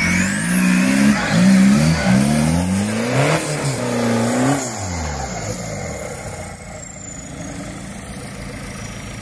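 Off-road buggy's engine revving hard in repeated rising and falling bursts as it climbs a steep bank under load; after about five seconds it drops back to quieter, steady running.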